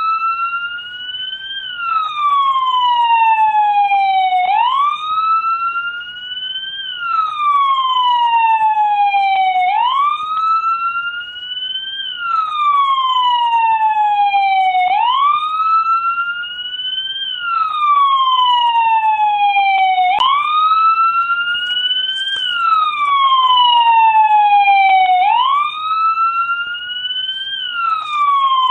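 American police car siren on a wail. Each cycle rises quickly in pitch and then falls slowly, repeating about every five seconds.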